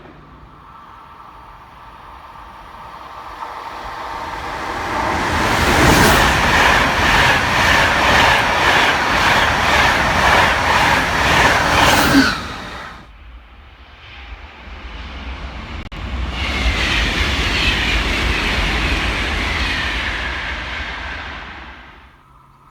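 A train passing at speed, building up with regular wheel clicks about twice a second, then cutting off suddenly about halfway. A second train then passes with a whine that falls in pitch as it goes by, and fades out near the end.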